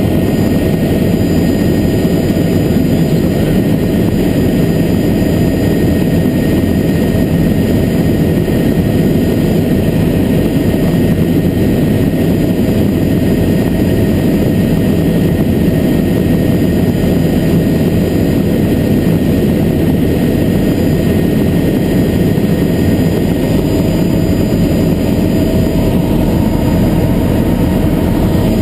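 Helicopter engine and rotor noise heard from inside the cabin, loud and steady, with a faint steady whine above it.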